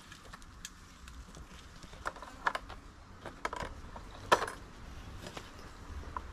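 Sharp metallic clinks and taps, about half a dozen spread over a few seconds with the loudest about four seconds in, from hand work with tools on a concrete block wall set around steel rebar.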